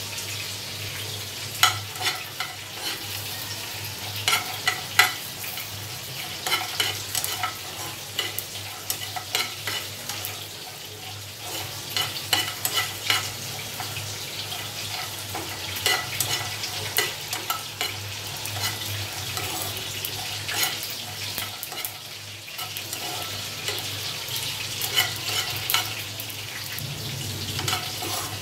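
A spatula stirring cashews, coconut slices and cumin as they roast in a nonstick frying pan: irregular scrapes and clicks as the nuts tumble against the pan, over a low steady hum.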